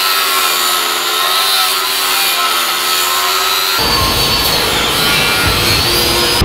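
Angle grinder with a cutoff wheel cutting through a steel frame crossmember bar: a steady whine over a dense hiss as the disc bites into the steel. About four seconds in, a low rumble joins the sound and the whine rises slightly in pitch.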